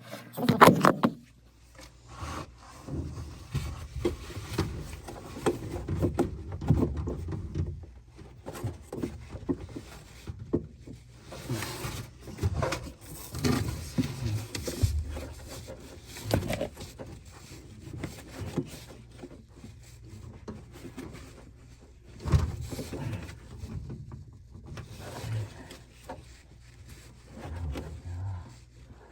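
Irregular knocks, scrapes and rubbing of hands working on an LG front-loading washing machine during a shock absorber replacement.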